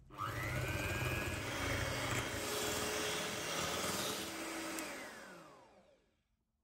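Electric hand mixer with wire beaters whipping eggs and sugar in a glass bowl. The motor whines up as it starts, runs steadily, then winds down with a falling whine and stops about six seconds in.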